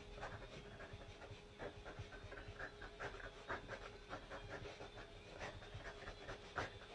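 A person sniffing at a dog's face at close range: quick, faint, repeated sniffs through the nose, a few a second.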